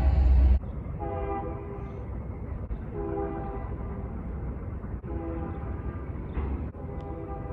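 Train horn: a loud blast breaks off about half a second in, then fainter blasts of the horn's chord sound several times over a low rumble, each ending abruptly.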